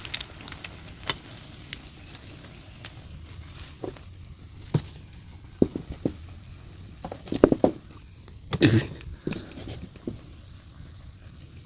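Thai omelette (khai jiao) frying in hot oil in a pan: a steady faint sizzle, broken by scattered sharp clicks and a few louder clattering moments about two-thirds of the way in.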